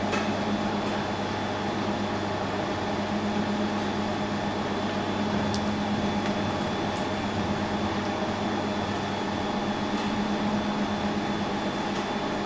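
Laser welding machine and its water chiller running at idle during start-up: a steady fan hum with a constant low drone and a faint high whine.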